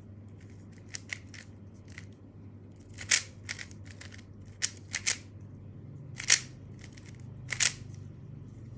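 Plastic clicks and clacks of a non-magnetic Monster Go speed cube being turned by hand, in irregular bursts of turns with a few louder clacks.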